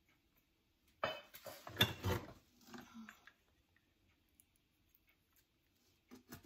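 Hands rummaging in a cardboard box of tangled Christmas light strings and lifting out metal candle holders: a short spell of rustling and light clattering about a second in, then quiet, with a sharp metallic clink near the end.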